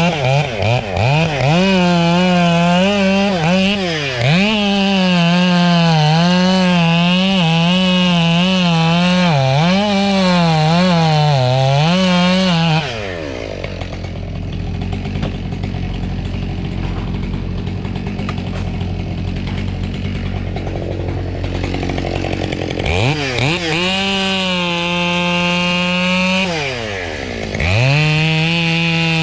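Two-stroke chainsaw cutting under load, its engine pitch dipping and recovering over and over as the chain bites into the wood. About thirteen seconds in it drops to idle, then revs up again and runs at full speed near the end.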